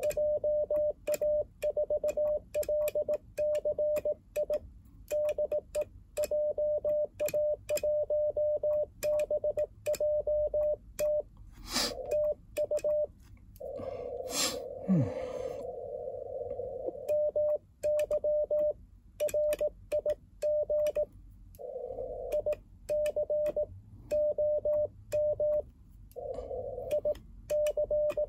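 Morse code sent with a paddle key on an Icom IC-705 transceiver: a single steady tone near 600 Hz keyed in dots and dashes at about 18 words per minute. A brief knock sounds about halfway through.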